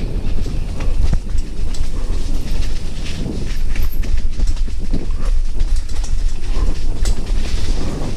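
Mountain bike running fast down a forest dirt singletrack: tyres rolling over roots and leaf litter, the bike rattling and clattering with many sharp knocks, over a deep steady rumble.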